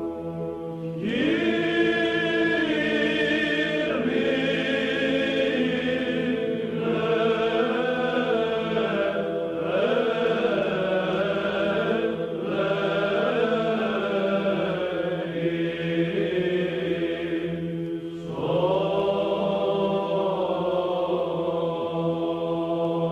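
Orthodox chant: voices sing a slow, bending melody in phrases over a steady held drone, with brief pauses between phrases.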